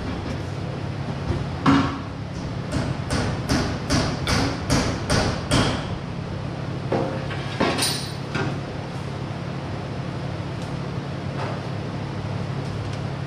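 Hammer striking metal: one blow, then a run of about eight even blows at roughly three a second, and a last blow with a brief metallic ring. A steady low fan hum runs underneath.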